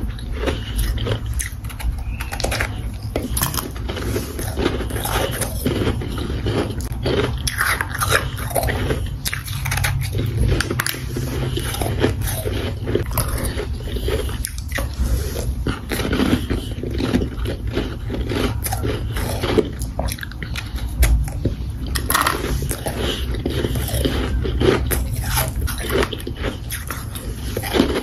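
A person biting and chewing crunchy, powdery ice chunks: a continuous run of dense, irregular crunches.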